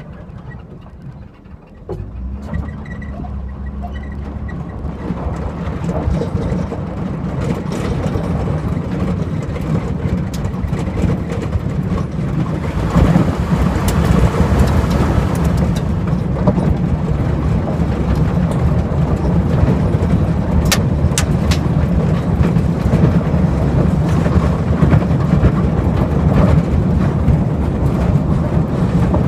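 Pickup truck pulling away and picking up speed on a gravel road, heard from its open bed: the engine comes in about two seconds in, then a rush of tyre and wind noise builds and stays loud from about halfway through. A few sharp ticks come around twenty seconds in.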